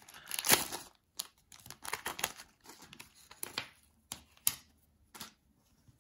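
Plastic booster pack of Dragon Ball Z Battle Tags being torn open by hand and its contents pulled out: a string of short tearing and crinkling bursts, loudest about half a second in, growing sparser toward the end.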